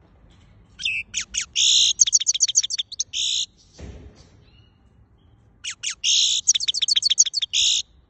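Goldfinch singing in two bursts of rapid, high twittering, each two to three seconds long, quick repeated notes mixed with buzzy held notes. A soft thump falls between the bursts.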